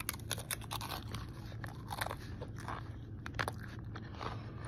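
Crisp fried tostada shell topped with pico de gallo and lettuce being bitten and chewed: a run of sharp crunches, many in quick succession.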